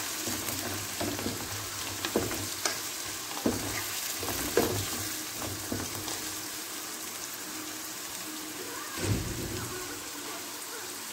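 Diced onion, grated carrot and bell pepper sizzling steadily in oil in a frying pan, with scattered scrapes and taps of a wooden spatula stirring them, mostly in the first half. There is a low thump about nine seconds in.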